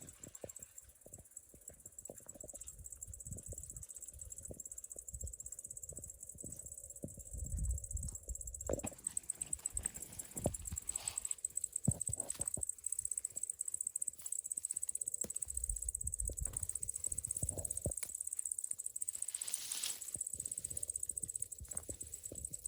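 Steady high-pitched chirring of insects, with irregular knocks, taps and rustles throughout.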